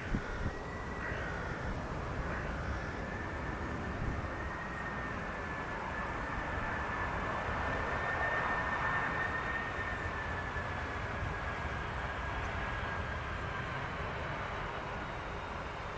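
Jet aircraft passing at a distance: a steady engine rush that swells to a peak about halfway through and eases off, with a thin, high engine whine held across it.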